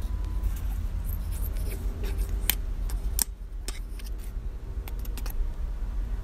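Small clicks and scrapes of a plant stem knocking and rubbing inside a plastic bottle of rooting powder, over a steady low rumble.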